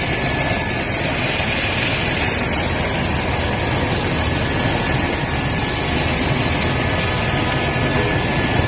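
Steady, loud cabin noise of an aircraft in flight, engine and rushing air heard from inside the cabin, with a faint steady whine.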